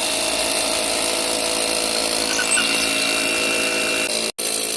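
Power tool motor running steadily at one constant speed, with a split-second break near the end.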